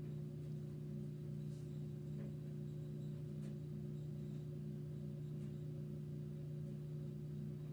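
A steady low hum made of several constant tones, with a faint regular pulsing in it. A few faint light clicks sound over it.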